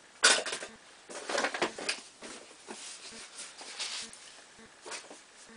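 Plastic toiletry bottles being handled and rummaged through: a sharp knock about a quarter second in, then scattered scraping, rattling and tapping.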